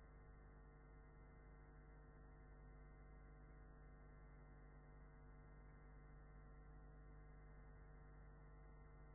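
Near silence with a faint, steady electrical hum and no other sound.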